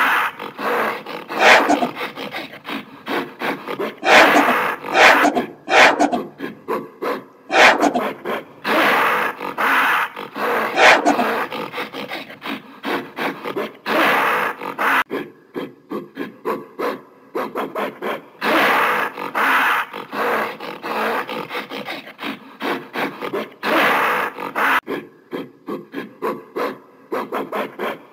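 Gorilla vocalizing: a long, irregular series of rough, breathy calls, some short and quick, others drawn out for a second or two, with brief gaps between them.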